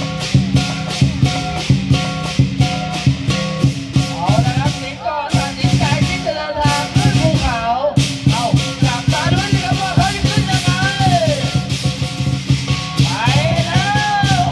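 Lion-dance percussion band, with drum, cymbals and gong, playing a fast, driving beat over a ringing gong tone. The cymbal crashes thin out briefly in the middle. Wavering, gliding pitched sounds rise over the beat in the middle and again near the end.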